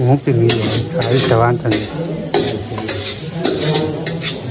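Green vegetables sizzling as they fry in a kadai (wok) over a wood fire, with a spatula stirring and scraping against the pan in a run of sharp clicks.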